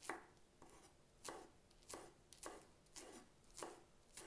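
Kitchen knife slicing an onion on a cutting board: faint, even cuts a little under two a second, with a knife the cook complains is blunt.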